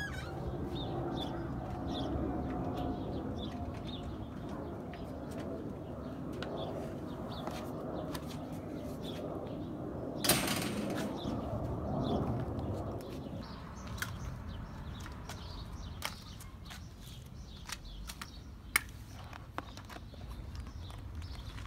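Birds chirping with a low cooing through the first half. A single loud sharp noise comes about halfway through, then scattered light clicks.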